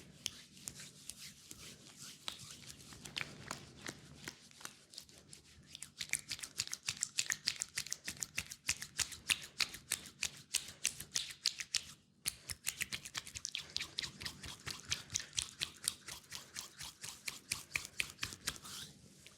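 Hands tapping and patting rapidly on skin in a fast acupressure leg massage, a quick run of sharp taps at about six a second. The taps are sparse for the first few seconds, then quicker and louder from about six seconds in, with a short break about twelve seconds in.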